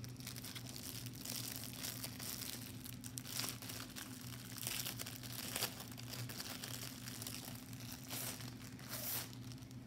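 Clear plastic sleeve around a rolled canvas crinkling as it is handled, in irregular bursts that come and go, the loudest near the middle and about a second before the end. A faint steady low hum runs underneath.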